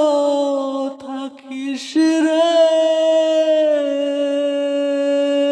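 A singer performing a Bengali lament song, with no instruments to be heard. The voice ends a phrase, takes a quick breath about two seconds in, then holds one long, slightly wavering note.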